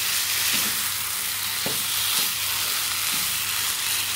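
Mutton liver fry sizzling in a nonstick frying pan as a wooden spatula stirs it, with a few soft knocks and scrapes of the spatula against the pan. The fry is done and ready to serve.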